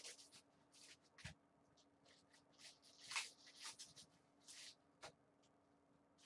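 Faint scattered rustles of basketball trading cards and their pack wrappers being flipped through and handled in gloved hands, a brief slide or flick every second or so.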